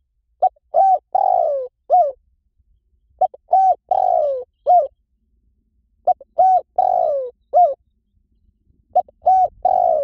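Spotted dove cooing its repeated phrase, about four times: a short note, a pair of coos, a longer falling croo and a last coo, repeating every three seconds or so. It is played as a call to lure spotted doves.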